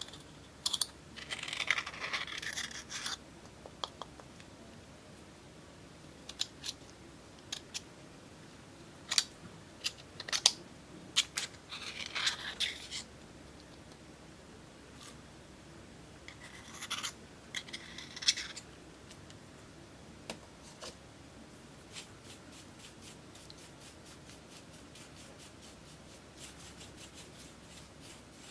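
Scratching and crackling as black glitter makeup and slime are worked by hand, in three short clusters of sharp crackles, then a run of fine quick ticks near the end.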